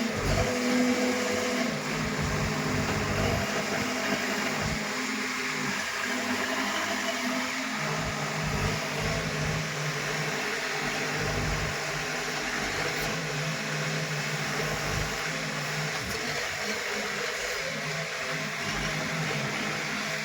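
A heavy machine's engine running, with a steady rushing noise over it; its hum drops to a lower pitch about two seconds in and holds there.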